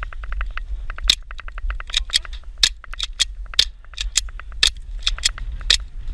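Airsoft gunfire: rapid runs of quick clicking shots, with louder sharp cracks scattered irregularly among them, over a low rumble.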